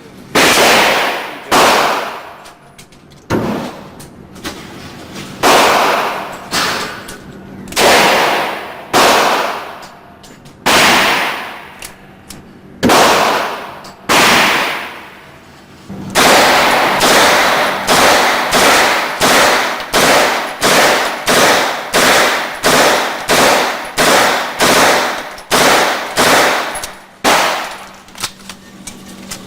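9mm gunfire, single shots one after another, each with a ringing tail: about one shot a second at first, then quicker from about halfway, roughly three shots every two seconds, stopping shortly before the end.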